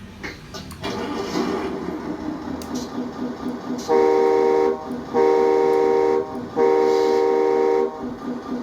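RC truck sound module playing a simulated diesel truck engine that starts up and settles into a pulsing idle, over which a simulated air horn sounds three long blasts, the last the longest.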